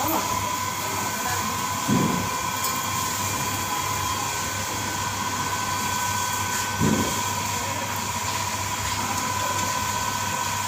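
Steady hum of running machinery with a constant high whine, broken by two short thumps about two seconds in and again about seven seconds in.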